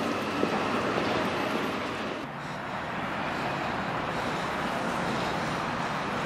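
A train running past on the line: a steady rushing rumble of wheels and air that eases briefly about two seconds in.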